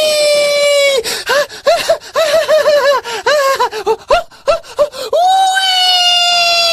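A person's high-pitched scream, held and slowly falling, breaks about a second in into a run of short, quick voiced gasps for about four seconds, then the long scream starts again.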